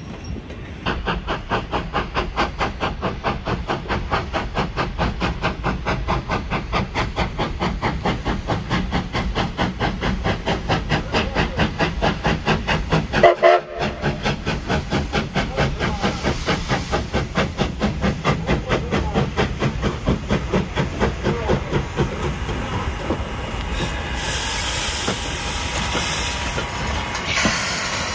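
Sierra Railway No. 28, a steam locomotive, chuffing in a steady rhythm of about three exhaust beats a second as it works its train, broken off briefly about halfway. Late on the beats give way to a steady hiss of steam.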